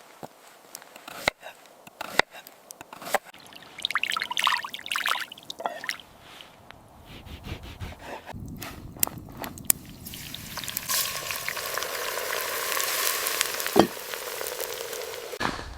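Cooking sounds: scattered knocks and clicks of utensils and cookware, then a steady hiss over the last five seconds or so, of the kind made by liquid pouring or food frying in a pot.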